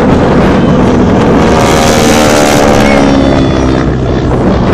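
North American Harvard T-6 (T-6 Texan) flying overhead, its Pratt & Whitney R-1340 radial engine and propeller giving a steady drone that is clearest in the middle and drops slightly in pitch. Heavy wind rumble on the microphone.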